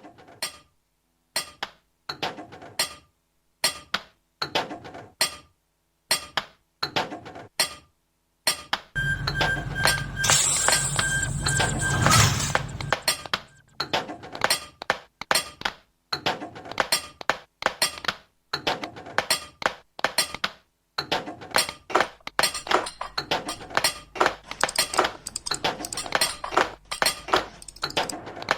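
Experimental sample-based music made of sharp clicking and clinking hits in an irregular rhythm, sparse at first and denser toward the end. About a third of the way in, a loud, dense noisy passage with a steady tone and a low hum swells and fades.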